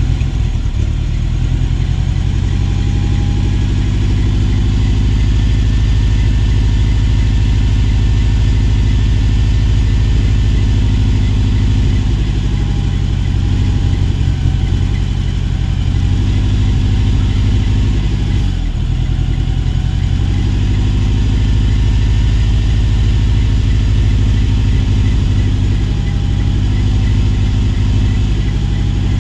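Dodge Ram pickup's engine idling steadily, warmed up, heard close by with the hood up.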